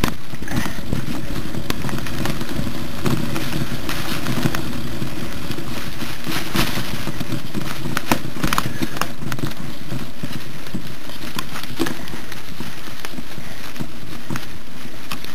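Mountain bike rolling down a rough grassy trail: a steady rumble of wind and tyre noise on the microphone, with scattered clicks and rattles.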